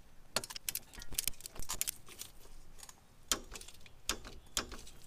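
Torque wrench ratchet clicking in short, uneven strings as a top upper-control-arm bolt is tightened to 32 ft-lb.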